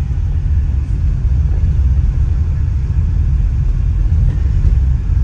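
Steady low rumble of a car's cabin while driving slowly, the engine and road noise heard from inside the car.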